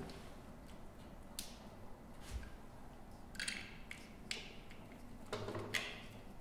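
Scattered light clicks and short scratchy rustles of hands handling wires and a plastic part while fitting a battery management system's wiring to a battery pack.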